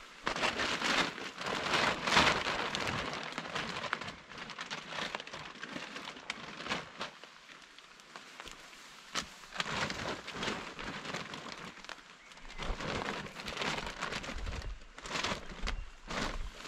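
Plastic tarp rustling and crinkling in loud bursts as it is pulled and folded over gear, against steady rain pattering.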